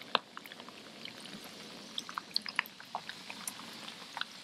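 Batter-coated perch fillets just dropped into very hot oil in a frying pan, the oil bubbling with a steady hiss and scattered small crackles and pops.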